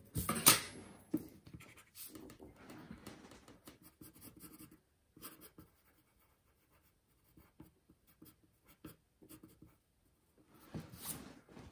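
Graphite pencil drawing on paper: faint, short scratchy strokes in runs, with a pause in the middle. A brief louder rustle near the start as a hand sweeps across the sheet.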